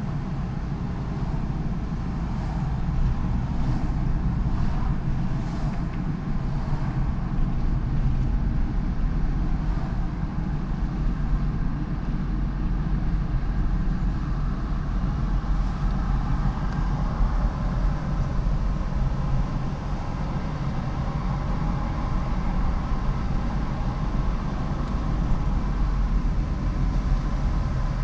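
Car being driven: a steady low rumble of engine and tyre noise.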